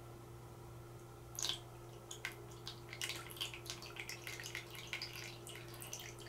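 Water draining from a tilted plastic container of soaked paper towel into a bowl: a small splash about a second and a half in, then irregular drips. This is the excess water running off a freshly soaked acrylic wet palette.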